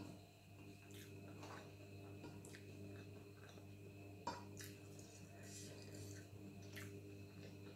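Washing machine running with a steady low hum, under quiet eating sounds: chewing and fingers working rice on a plate, with a sharp click about four seconds in.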